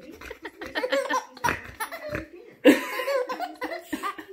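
Laughter in short, repeated bursts: a baby laughing as its toes are nibbled, mixed with adult laughter. The loudest burst comes about two-thirds of the way in.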